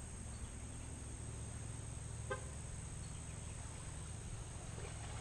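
Insects buzzing steadily in a continuous high drone, over a low steady background rumble. One brief faint pitched sound a little over two seconds in.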